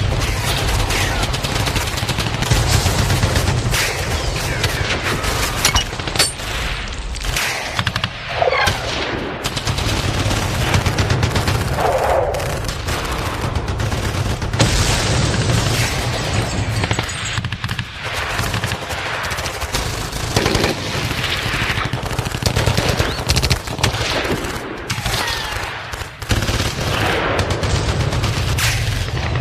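Battlefield sound effect: dense, continuous machine-gun and rifle fire, with a heavy low rumble underneath and a few short sliding whines among the shots.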